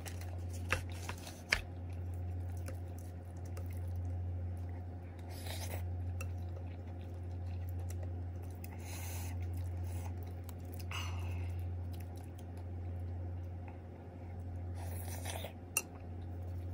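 Someone eating rice with a spoon from a ceramic bowl: the spoon clicks and scrapes against the bowl a few times, with chewing in between. A steady low hum runs underneath.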